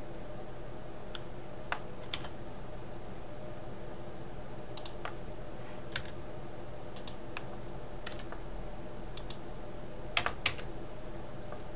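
Scattered clicks of computer keyboard keys and mouse buttons, about a dozen, some in quick pairs, over a steady low electrical hum.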